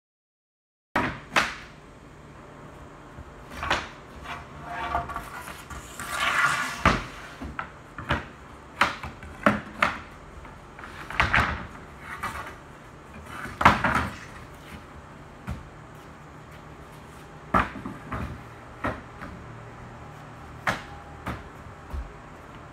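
Loose reclaimed softwood floorboards being laid and dropped onto a wooden deck: a string of irregular wooden knocks and clatters starting about a second in, with boards rattling against each other for a moment and the loudest knock about halfway through.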